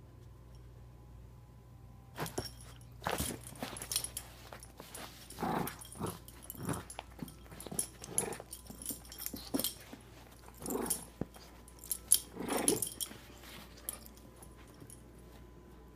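Shih Tzu growling in play while tugging at a plush toy, in a series of short irregular bursts that start about two seconds in and die away near the end.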